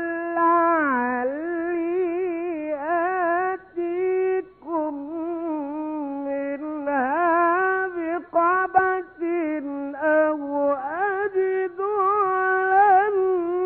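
A male Egyptian Quran reciter chanting unaccompanied in the ornamented melodic style, holding long wavering notes, with a short breath pause about four and a half seconds in.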